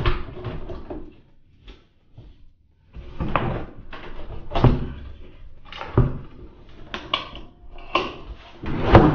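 Hands handling a mixing console on a wooden desk: a series of separate knocks and bumps about a second apart with rustling between, the loudest knock near the end.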